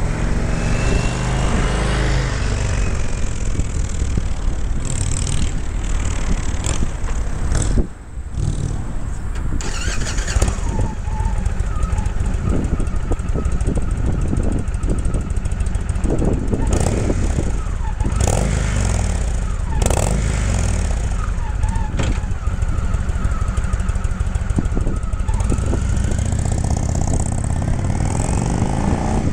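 Indian Thunder Stroke 111 V-twin motorcycle engine running through its exhaust, idling and being revved, with a short break about eight seconds in before it carries on.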